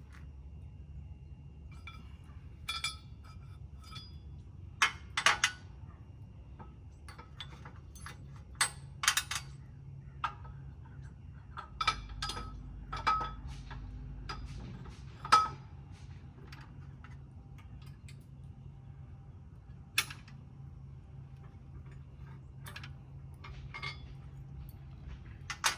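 Metal parts of a Z-Rator aerator attachment clinking and clanking as they are fitted to a mower: a dozen or so sharp, irregular knocks with brief metallic ringing, the loudest about fifteen seconds in.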